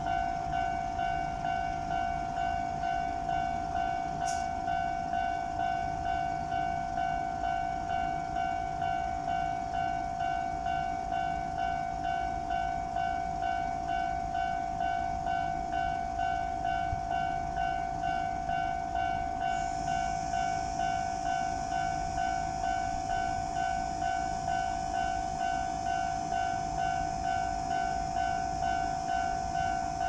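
Japanese level-crossing alarm bell ringing steadily, an electronic clang at a little over two strokes a second, warning that a train is approaching. A higher hiss joins in about two-thirds of the way through.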